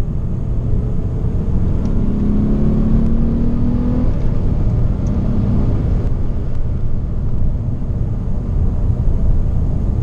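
Ford Mondeo ST220's 3.0 V6 accelerating, its note rising steadily and breaking off about four seconds in, followed by a loud, steady rumble of engine and road noise.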